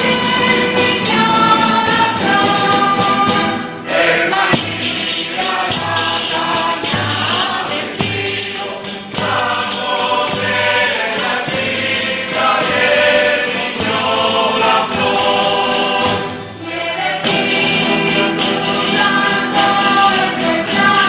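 Group of voices singing a devotional round in chorus, with jingling percussion such as a tambourine. The singing breaks off briefly about four seconds in and again about sixteen seconds in, between phrases.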